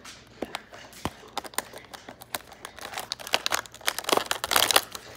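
Cardboard advent calendar door being pushed in and torn open along its perforations: a run of small cardboard crackles and tears that grows busier and louder toward the end.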